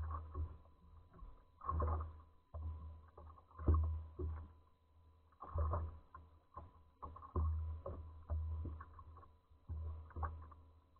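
Small waves slapping against the hull of a fishing boat: irregular low thuds with a splashy edge, one every second or two.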